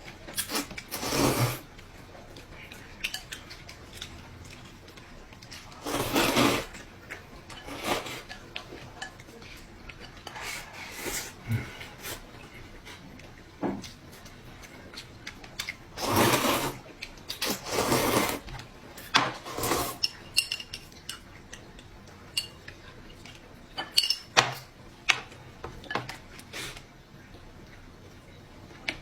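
Eating at a table: several loud noisy mouthfuls of rice noodles, with a run of light clicks of utensils against dishes in the second half.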